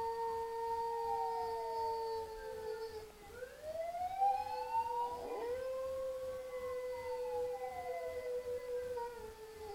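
Canine howling: several long howls overlap, some holding a steady pitch and others gliding slowly down or up over a few seconds. A brief sharp yelp comes about five seconds in.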